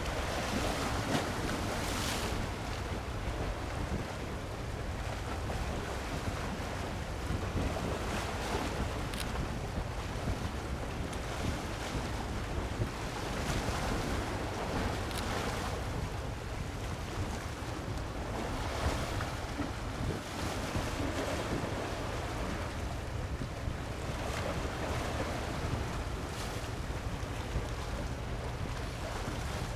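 Sea waves washing and breaking every few seconds at irregular intervals, with wind buffeting the microphone as a steady low rumble.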